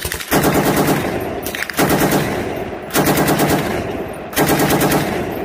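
Machine-gun fire sound effect: four rapid bursts of about a second each, back to back, each made of fast, evenly spaced shots.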